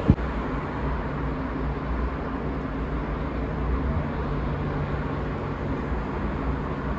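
Steady city road-traffic noise: an even wash of tyre and engine sound with a low steady hum underneath, after a brief sharp click right at the start.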